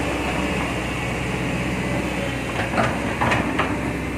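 Heavy diesel engine running steadily. From about two and a half seconds in, a handful of sharp knocks and clanks come over it.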